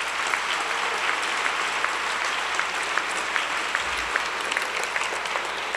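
Audience applauding steadily after an award announcement, a dense wash of clapping with individual claps standing out.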